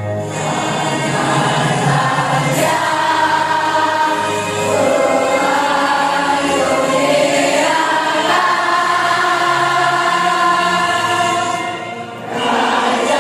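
Group singing over an instrumental accompaniment: a choir-like body of voices holding long notes over a steady bass line, with a short drop in level near the end.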